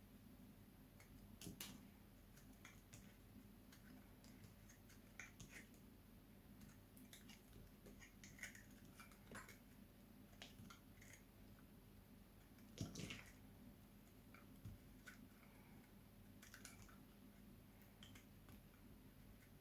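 Knife cutting through dry soap: faint, irregular crisp crackles and clicks, with a louder crunch about a second and a half in and another near 13 seconds.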